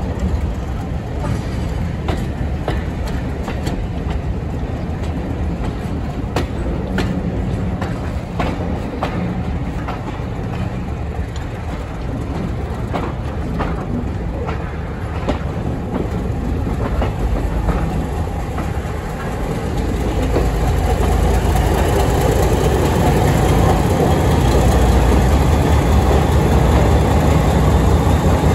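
Train running on jointed track behind a Class 31 diesel locomotive: wheels clicking over rail joints over a steady rumble. About two-thirds of the way in the rumble grows louder and deeper.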